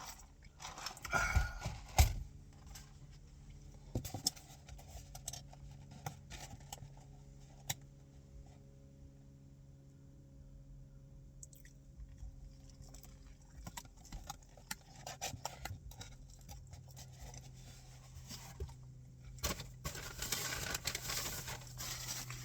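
A person chewing and crunching food, with scattered small clicks and rustles and a sharp knock about two seconds in, over a steady low hum.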